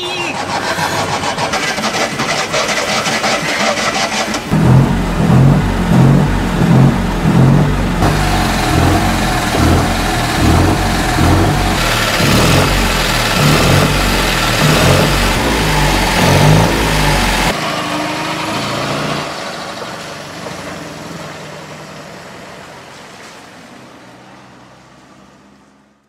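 Classic Fiat 500's air-cooled two-cylinder engine running and being revved hard in repeated blips of the gas pedal, about one every 0.7 seconds, then settling to steadier running that fades out near the end.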